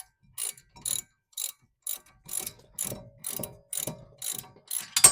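Hand ratchet wrench clicking in steady back-and-forth strokes, about two a second, as a brake caliper bracket bolt is run in and snugged. A sharper metallic click comes at the end.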